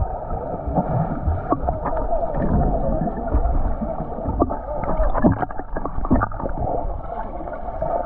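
Muffled, gurgling rush of river water with many small irregular splashes and knocks, dull and without any high end.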